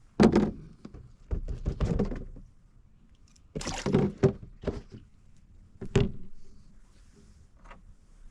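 A string of hollow thunks and knocks as a crappie is put into the boat's fish box: the box's lid and the fish knocking about. The loudest thunk comes just after the start, with a few more spread through the rest, fading to faint near the end.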